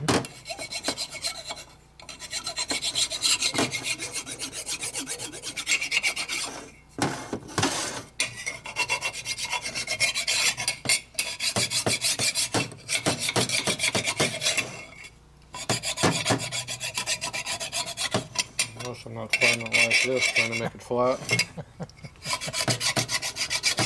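Hand file rasping in quick back-and-forth strokes across the gasket face of a 1965 Harley-Davidson 4-speed transmission case, filing down high spots to make the surface flat. The filing stops briefly a few times.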